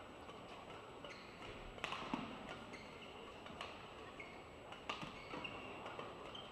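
Badminton play: sharp racket hits on the shuttlecock about a second or so apart, with short high squeaks of shoes on the court over a low, even arena background.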